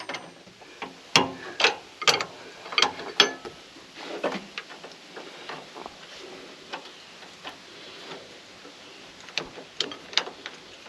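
Irregular sharp clicks and knocks of close handling, several loud ones in the first few seconds, sparser light ticks in the middle, and a few more near the end.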